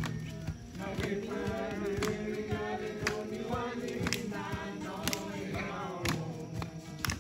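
A group of men singing together in chorus, with a sharp beat about once a second.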